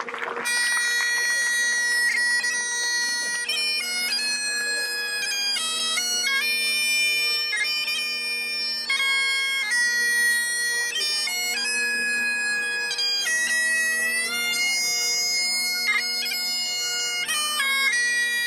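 Great Highland bagpipes playing a tune: a chanter melody stepping between held notes over steady, unchanging drones.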